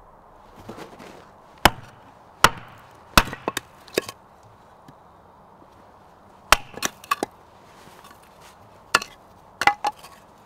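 A blade chopping against wood: about a dozen sharp, irregular knocks in small groups of one to three strokes, with pauses between.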